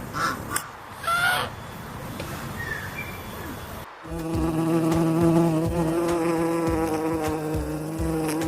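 A flying insect buzzing steadily at one low pitch, which starts abruptly about halfway through. Before it, a noisy background holds two short calls.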